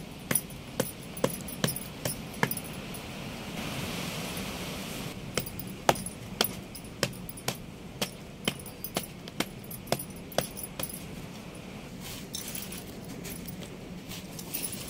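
A pestle pounding a block of jaggery, first in a half coconut shell and then on a woven tray, at about two sharp strikes a second. The pounding pauses briefly after the first handful of strikes.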